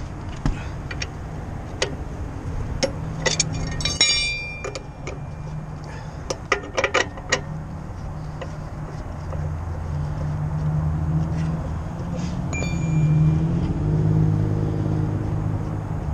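Steel hand tools clinking and ringing as they are handled, in several clusters of sharp clicks with a few bright metallic rings, over a steady low vehicle rumble that grows louder in the second half.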